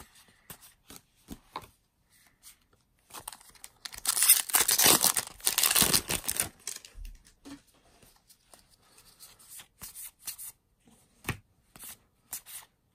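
A Magic: The Gathering booster pack's wrapper being torn open: a loud, crinkly rip lasting about two seconds, a few seconds in. Soft clicks and rustles of cards being handled come before and after it.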